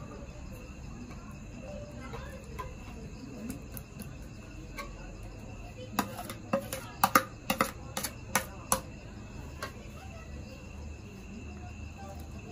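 A metal spoon knocks and scrapes against a plate as diced cucumber is pushed off it into a steel bowl, giving about ten sharp clicks over some three seconds starting about six seconds in. Crickets chirp steadily in the background.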